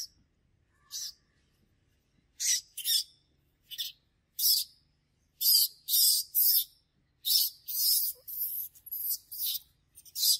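Infant macaque crying: repeated short, shrill screams, a few at first, then coming in quick clusters from about two and a half seconds in.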